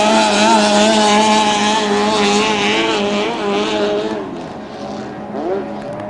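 Racing powerboat engine running flat out as the boat passes, its pitch wavering up and down as the hull skips over the water, then fading away about four seconds in.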